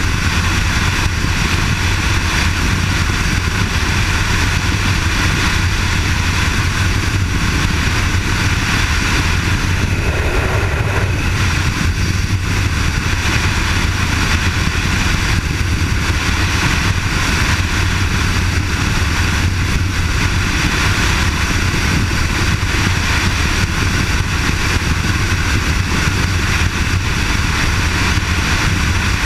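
Kawasaki KLR650's single-cylinder engine running steadily at highway cruising speed, under a constant rush of wind and road noise.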